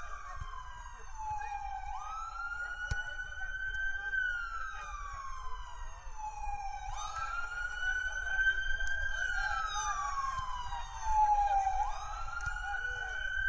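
An emergency vehicle's siren wailing: the pitch rises quickly, holds, then slides slowly down, repeating about every five seconds, over a low rumble.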